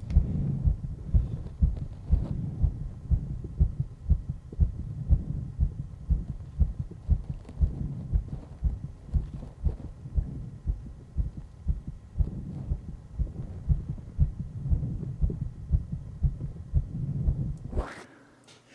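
A person's heartbeat picked up close on a microphone after hard exercise: fast, even low beats that cut off suddenly near the end.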